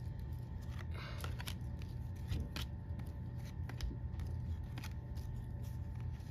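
A stack of Topps baseball cards being handled and flicked through: irregular soft clicks and a brief papery rustle about a second in as cards slide against each other, over a steady low hum.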